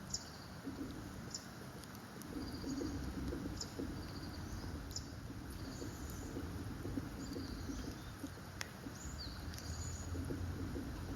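A dove cooing in low phrases repeated every few seconds, with short high chirps from other small birds in between.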